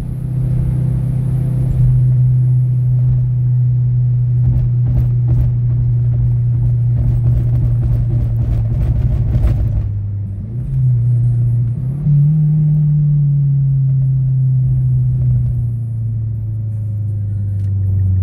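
Mazdaspeed6 turbocharged 2.3-litre four-cylinder engine in a Mazda6, breathing through a full 3-inch exhaust with an Apexi N1 muffler, heard as a steady drone inside the cabin while driving. A little past halfway the engine note steps up twice, then sinks slowly.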